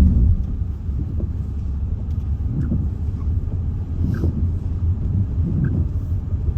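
Car tyres crossing a cattle grid: a brief, louder low rumble at the very start, then the steady rumble of the car driving on a wet road, heard from inside the cabin.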